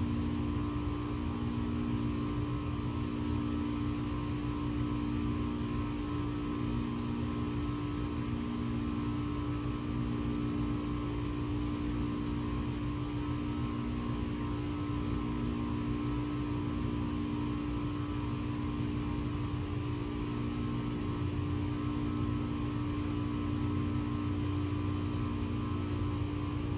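A steady mechanical hum, with a lower tone that pulses about once a second.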